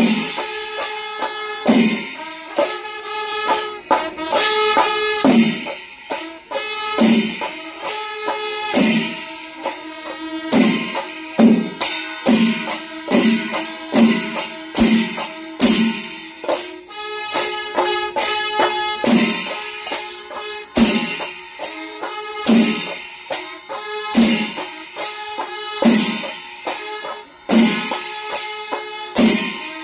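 Kerala temple melam playing: drums and hand cymbals in a steady beat of roughly one stroke a second, with a wind instrument holding long notes above them.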